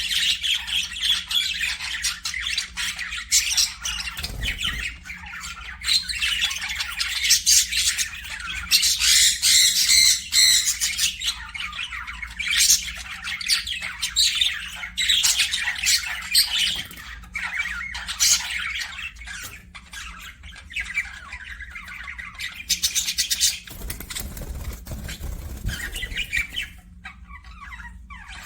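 Parakeets chirping and chattering in rapid, high-pitched calls with hardly a pause, thinning out near the end.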